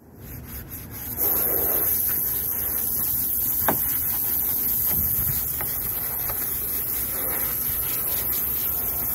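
Washing a sanded fiberglass boat hull: a stiff bristle brush scrubbing soapy water and water spraying on the hull, a steady hissing wash that fades in over the first second. A single sharp tick a few seconds in.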